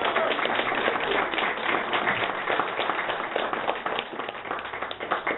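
Audience applause, a dense patter of many hands clapping that thins out to scattered single claps near the end.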